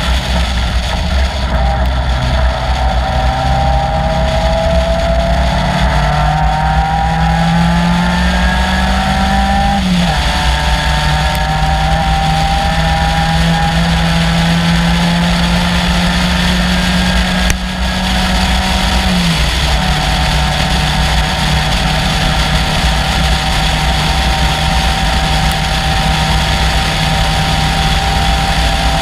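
Caterham Seven's 2.3-litre Ford Duratec four-cylinder running at full throttle in a race. The engine note climbs slowly through the revs, then drops sharply at an upshift about ten seconds in and again about nineteen seconds in, before climbing once more.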